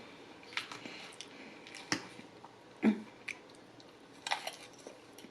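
Close-up chewing of a salad with hard croutons: scattered soft crunches and mouth clicks, the sharpest about two seconds in.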